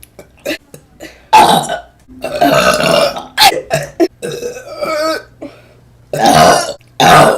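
A string of loud burps from women, about six in all, each cut off by a short gap. One is long and drawn out; the rest are shorter.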